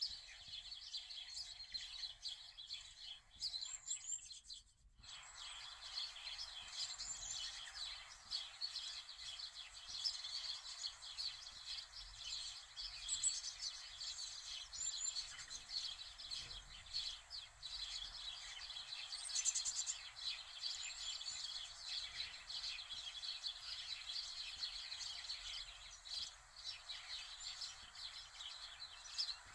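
Birds chirping over a steady background hiss, with a short break in the sound about five seconds in.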